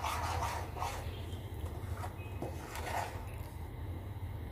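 Spoon stirring thick rice-and-banana batter in a bowl: a few faint, soft rubbing strokes over a low steady hum.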